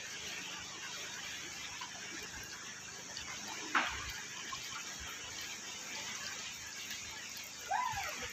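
Steady wash of moving water. A single sharp knock about four seconds in, and a brief rising-and-falling squeak near the end.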